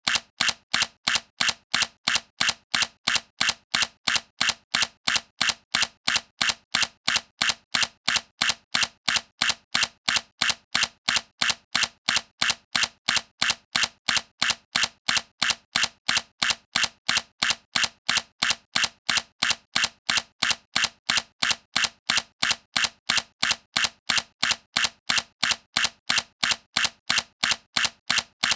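Sony A7C mirrorless camera's shutter firing over and over at an even rhythm of about three clicks a second.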